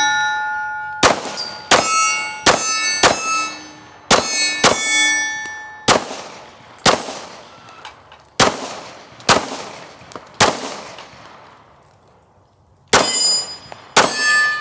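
Glock 17 Gen 1 (P80 replica) 9mm pistol fired in a steady string of about a dozen shots, roughly one a second, with a pause near the end before the last few. Many shots are followed by the ringing clang of steel targets being hit.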